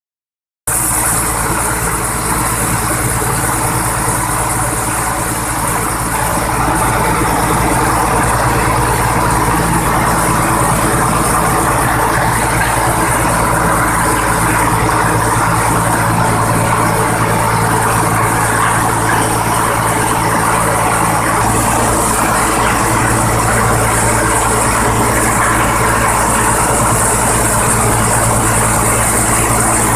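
Engine-driven rice milling machine running steadily, with a constant engine hum and a high hiss; its tone shifts slightly about two-thirds of the way through.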